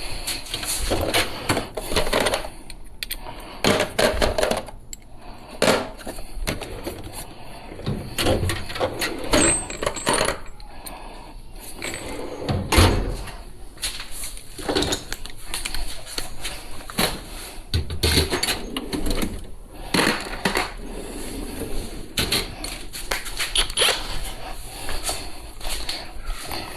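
Irregular metallic clinks and knocks of metal parts and hardware being handled, coming every second or so.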